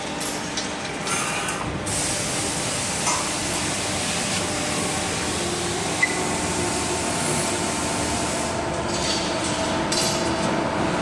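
Steady hum and hiss of an Accurl MB8-160Tx3200 160-ton CNC hydraulic press brake running, with its hydraulic pump on. A single sharp metallic click comes about six seconds in.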